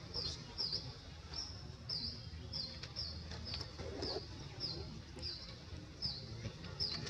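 A small bird chirping over and over, short high chirps about twice a second, over a low steady rumble. A brief lower sound breaks in about four seconds in.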